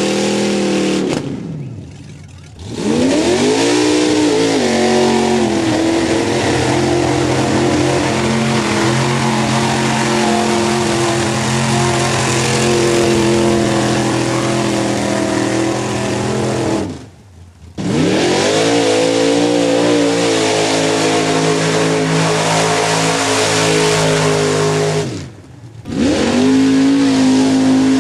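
Big-engined mud-bog 4x4 trucks running hard at high revs as they churn through a mud pit. The sound comes in separate runs split by short gaps, and after each gap the engine pitch climbs steeply before holding high.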